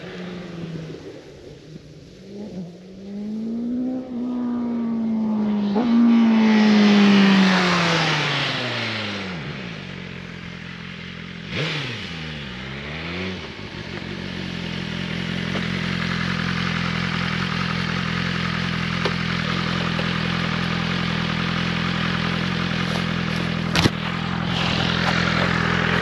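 BMW M1000RR's inline-four engine on its stock exhaust, revving hard as the motorcycle accelerates past: the pitch climbs to the loudest point a few seconds in, then falls steeply as it passes and pulls away. A brief second falling sweep follows, then the engine settles into a steady, even note.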